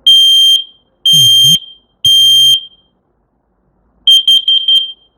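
Kidde combination smoke and carbon monoxide alarm sounding its self-test after the test button is pressed: three loud, high-pitched beeps, each about half a second long with half-second gaps (the temporal-three fire-alarm pattern). After a pause of about a second and a half comes a quick run of short beeps at the same pitch, from its carbon monoxide alarm.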